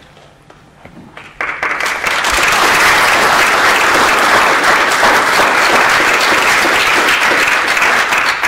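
A roomful of people applauding. A few scattered claps swell quickly into full, steady applause about a second and a half in.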